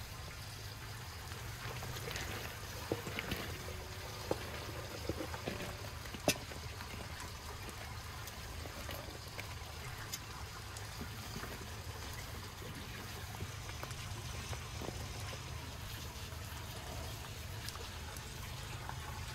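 Scattered soft taps as sliced vegetables are laid by hand into a large aluminium cauldron, most of them in the first few seconds. Under them runs a steady trickle of running water.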